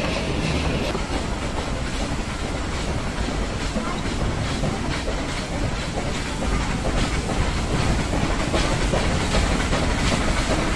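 Steam-hauled metre-gauge Nilgiri mountain train running along the track: a steady rumble with wheels clattering over the rails.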